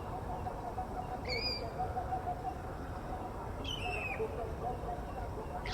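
Grey parrots calling: a short clear whistle about a second in, a falling whistled call around four seconds, and a harsh screech starting near the end, over steady low background noise.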